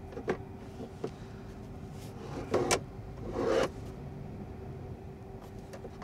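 Plastic housing of the S3XY Knob clicking and scraping against the centre-console trim as it is pressed and pushed into place. There are a few sharp clicks, then two louder scraping rubs about halfway through, over a steady low hum.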